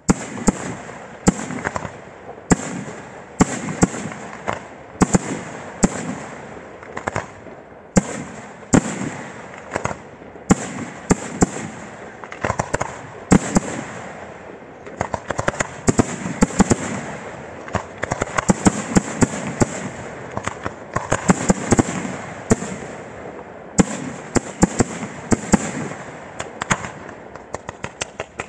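Aerial fireworks display: a barrage of shells bursting, with a loud bang about every second over continuous crackling and rumble. Near the end comes a quicker run of small, sharp pops.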